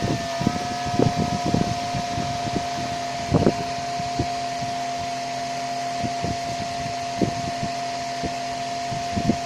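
Small DC motor driving the fan of a homemade plastic-box air cooler, running steadily with a constant whine over a hiss of moving air. Light knocks sound here and there through it.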